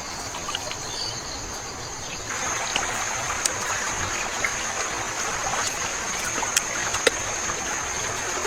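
Water running and trickling, growing louder about two seconds in, over a steady high whine, with a few sharp clicks scattered through.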